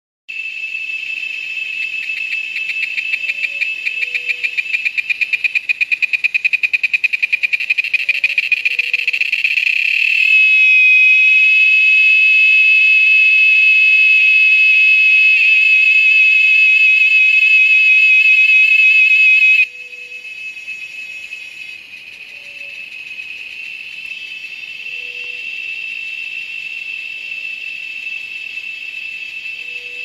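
A cicada calling: a high-pitched buzz that starts as rapid pulses, growing louder and faster until, about ten seconds in, they merge into a loud steady whine. About twenty seconds in it drops abruptly to a softer steady buzz.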